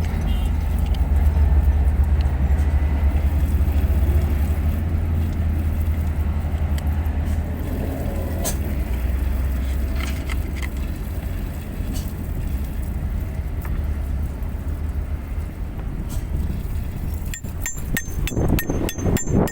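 A heavy diesel engine idling with a steady low rumble, with a few sharp metallic clinks near the end.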